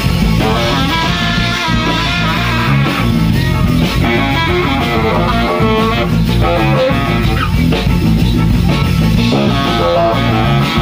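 Live Afro-jazz band playing loud and close, baritone saxophones and trombone over electric guitar and a rhythm section.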